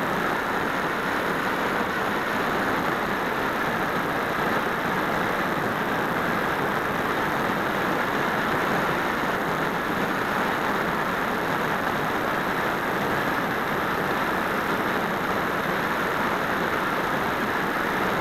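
Steady rush of airflow over the microphone of a keychain camera mounted on the wing of an RC glider in flight; an even hiss with no motor whine in it.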